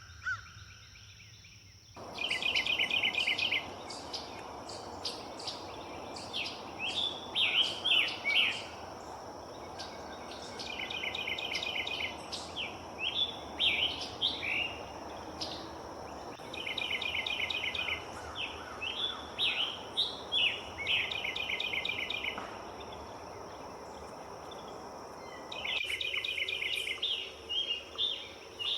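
A songbird singing the same song over and over, about every five seconds: a fast, even trill followed by a run of quick slurred notes. A steady background hiss sits beneath it.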